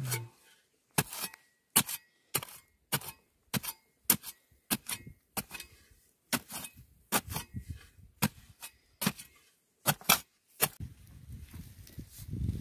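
Narrow-bladed digging spade chopping into hard, dry soil in a small hole, a sharp blow about twice a second. The blows stop about eleven seconds in, giving way to a low scraping and rustling of soil.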